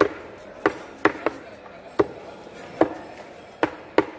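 Big knife chopping through a large fish into chunks on a wooden block: about eight sharp chops, unevenly spaced, each a hard knock as the blade hits the wood.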